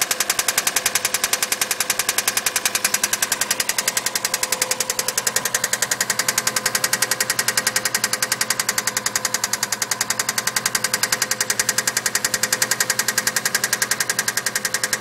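Subaru EJ20 flat-four boxer engine running with a steady knock: sharp, evenly spaced raps about six a second, never letting up.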